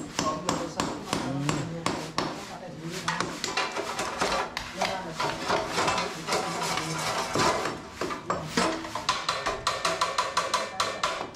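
Background music with people talking, over a run of sharp knocks and clatter from hand tools at work, which comes thick and fast near the end.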